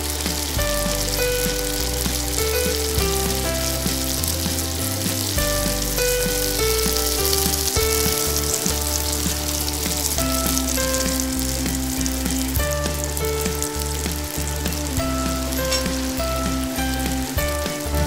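Chopped garlic, then diced onion, sizzling as they fry in hot oil in a nonstick pan while a silicone spatula stirs them. Light background music plays underneath.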